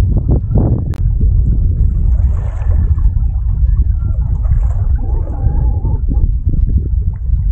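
Wind buffeting the microphone: a loud, uneven low rumble, with a sharp click about a second in.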